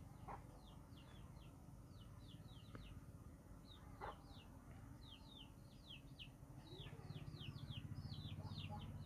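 Birds chirping faintly in the background: a steady run of short, high chirps falling in pitch, several a second. There are a few soft clicks, and a low hum comes up near the end.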